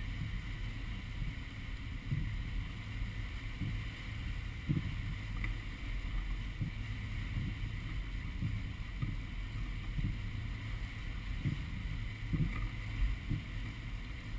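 Powerboat engine running steadily while underway, a low drone, with irregular soft low thumps every second or so.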